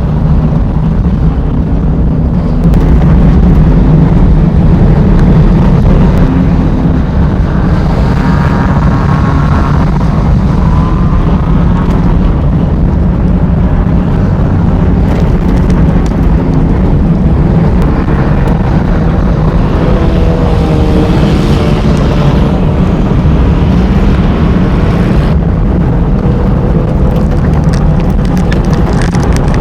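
Enduro race car engines running loud and steady, with no break.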